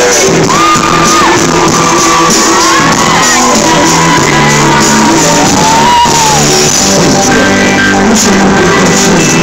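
Loud live pop music in an arena, with crowd shouts and high screams over the sustained music.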